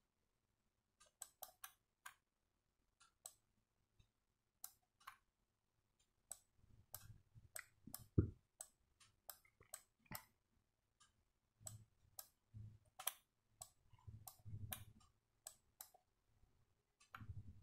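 Near silence broken by faint, irregular clicks and ticks, scattered rather than rhythmic, with a few soft low thumps in the second half, the loudest about eight seconds in.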